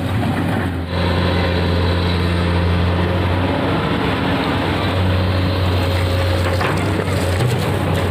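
Komatsu PC200 amphibious long-arm excavator's diesel engine running steadily as the machine works its arm and bucket, a constant low hum with a brief dip about a second in.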